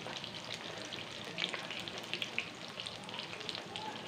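Chicken karaage pieces frying in a pan of hot oil: a steady sizzle full of quick small crackles and pops.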